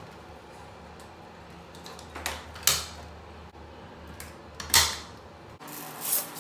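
Batteries being pushed into a plastic battery holder of an automatic soap dispenser: a few separate clicks and knocks of the cells against the plastic, the loudest near the end of the fitting. Then crinkling of thin plastic protective film being peeled off the dispenser's cover.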